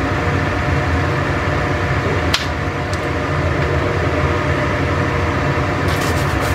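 Steady whirring hum of a running kitchen appliance, with a sharp click a little over two seconds in and a short run of faint clicks near the end.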